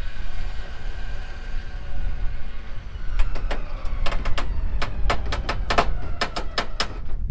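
A vehicle engine running with a steady rumble and a faint whine. From about three seconds in come a string of sharp clicks or knocks.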